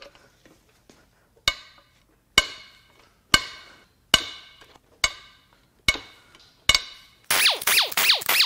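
Main bearing cap bolts on a Ford 2.7 EcoBoost V6 block breaking loose one after another under a long breaker bar: seven sharp, ringing cracks about a second apart. Near the end, a fast run of short squeaks as a loosened bolt is turned out.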